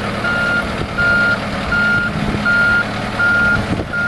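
Boat travel lift's motion alarm beeping in a steady single tone, about three beeps every two seconds, over the low, steady running of its engine.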